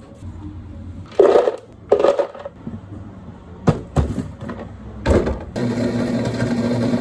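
Ice tipped into a blender jar in two short bursts, a few sharp clicks of a jar and lid being set in place, then a blender motor starting about five and a half seconds in and running with a steady hum.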